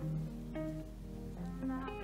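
Background music: a track of plucked guitar notes over a steady bass line.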